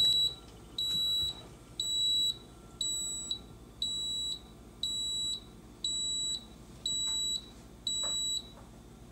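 EUHOMY ICM-01-HM ice cream maker giving its alert: nine short, high electronic beeps, about one a second, typical of the signal that the churning cycle has ended.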